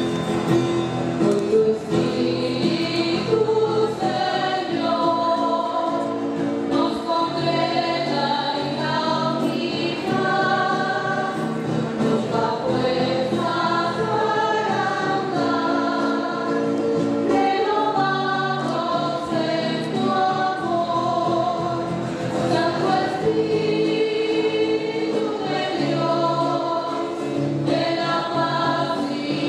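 Choir singing a hymn, with long held notes.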